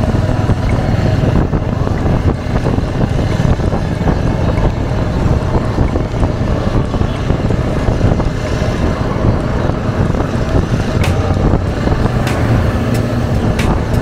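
Royal Enfield Hunter 350's single-cylinder engine running steadily at cruising speed through its stock exhaust, heard from the rider's seat over road and wind noise. A few sharp clicks in the last few seconds.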